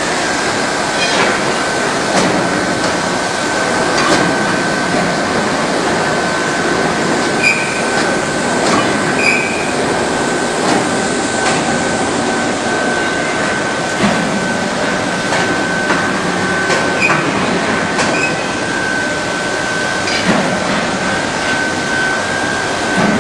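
Induction melting furnace running, with a steady high whine held over dense rumbling industrial noise and scattered knocks and clanks.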